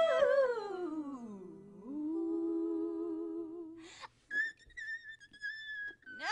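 Rubber balloon squealing as air is let out through its stretched neck: a squeal that slides down in pitch, then a lower steady squeal, and after a short gap a high, wavering squeal.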